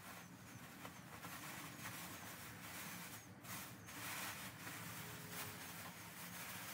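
Faint rustling and crinkling of a plastic bag holding chopped-strand fiberglass as it is handled, with a few slightly louder crinkles about three to four seconds in.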